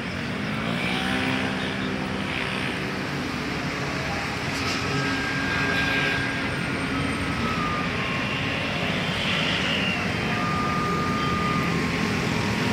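Steady low rumble of vehicles, with a faint tune of held notes changing pitch over it.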